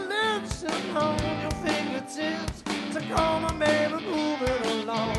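Live rock band playing: a male vocalist singing over electric guitar and drums, with drum hits landing at a steady beat.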